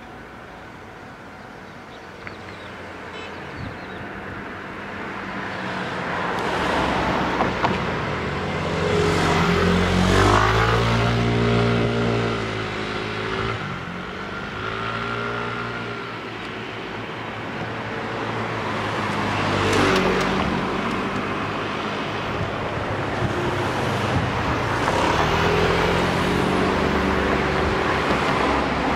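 Road traffic: motor vehicles passing by one after another, their engine notes rising and falling as they come and go, with the loudest passes about a third of the way in and again past the middle.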